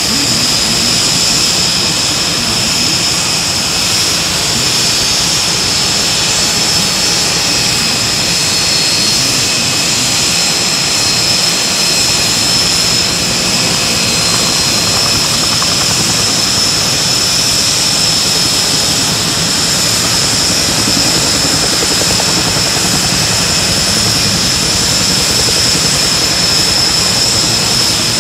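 Aircraft turbine engine running steadily and loudly: a constant high whine over a broad rush that does not rise or fall.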